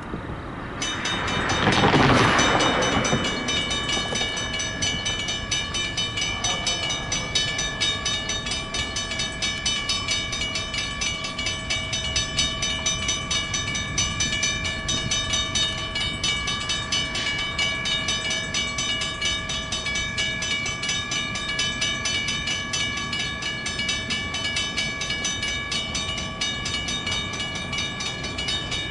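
Railroad grade-crossing warning bell ringing rapidly and steadily, starting about a second in. A loud rushing noise passes about two seconds in.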